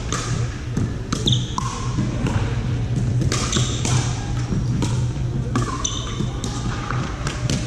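Pickleball rally: a string of sharp pops from paddles hitting a plastic ball and the ball bouncing on the court, with sneakers squeaking on the hardwood floor. It carries in a large hall over a steady low hum and the sound of play on other courts.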